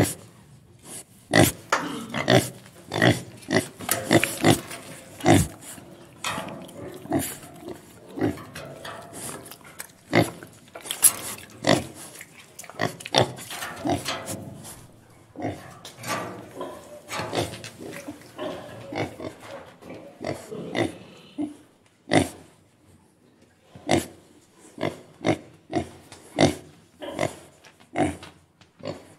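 Pig grunting: many short calls in an uneven series, with a brief lull about three-quarters of the way through.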